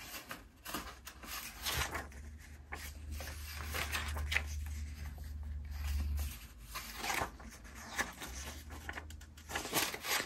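Paper pages of a ring binder being turned and flicked through by hand: a string of irregular rustles and flaps, over a low steady hum that fades out near the end.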